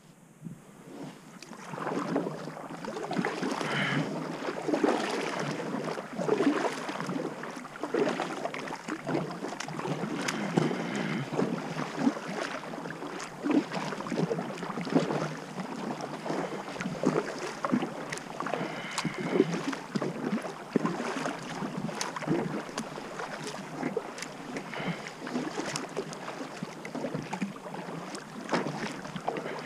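Kayak paddle strokes splashing in lake water: a continuous run of irregular dips and splashes that starts about a second in.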